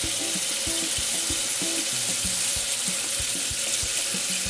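Tap water running steadily into a saucepan of chopped red cabbage, splashing and hissing as the pan fills.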